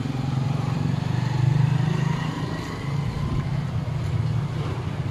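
Nissan Navara D40 pickup's engine idling: a steady low drone, a little louder about a second and a half in.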